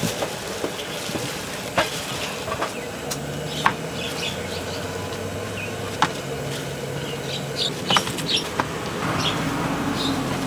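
Gloved hands tossing chicken pieces in dry flour in a plastic tub: plastic gloves rustling and crinkling, with a few sharp knocks against the tub, over a steady background hiss.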